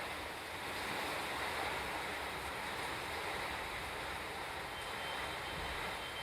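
Steady heavy rainfall, an even hiss, with a low rolling rumble of distant thunder underneath.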